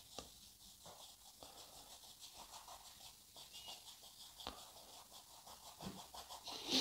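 Paintbrush faintly scrubbing oil paint across canvas, a few soft scratchy strokes that grow louder near the end as the paint is blended.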